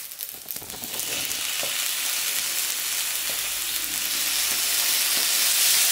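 Soy sauce and udon noodles sizzling on a hot electric teppanyaki griddle plate. The hiss sets in about a second in and grows steadily louder.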